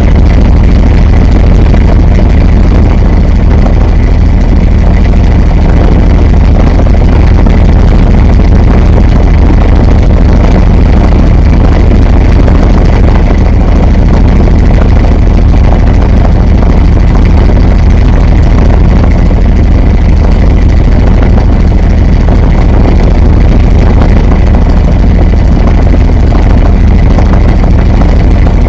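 Washing machine running, heard from inside the drum: a loud, steady, deep rumble that does not change.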